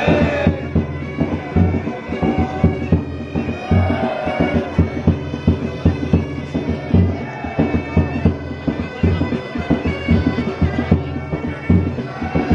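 Pipe band playing: bagpipes sounding a melody over their steady drone, with regular drumbeats.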